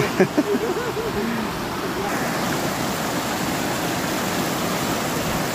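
Steady rushing of whitewater as a small river tumbles over rock ledges in rapids. A few short voice sounds come in the first second or so.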